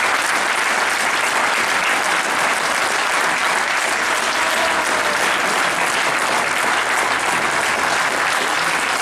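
Large stadium crowd applauding steadily.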